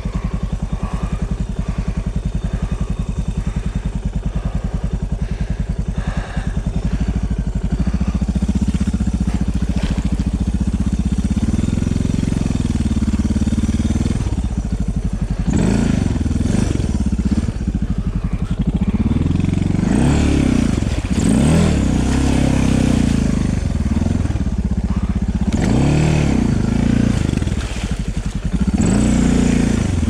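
Suzuki DR650's single-cylinder four-stroke engine running at low revs, then from about ten seconds in revved up and down again and again in short bursts as the bike is worked through a shallow rocky river.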